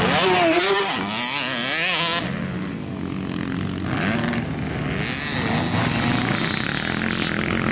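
Several motocross dirt bike engines revving up and down at once, their pitches rising and falling as the bikes race around the dirt track. The sound changes abruptly about two seconds in, and the engines are a little quieter after that.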